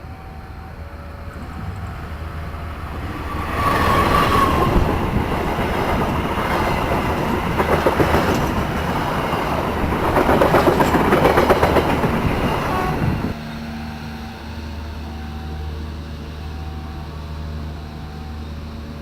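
A train passing a railway level crossing: its wheels clatter over the rail joints for about ten seconds, then the noise drops away suddenly. The crossing's alternating two-tone warning alarm sounds before and after the train, over a low steady hum.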